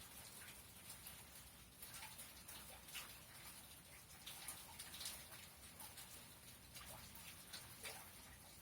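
Faint rain: scattered raindrops landing in irregular short ticks, a few a second, over a steady soft hiss.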